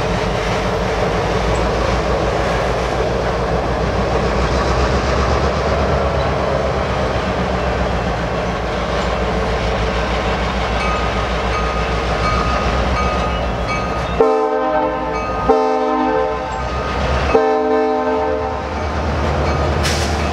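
Freight cars (covered hoppers, a caboose and tank cars) rolling past, their wheels rumbling and clattering on the rails. About fourteen seconds in, a locomotive air horn blows three chord blasts: two back to back, then a third after a short pause.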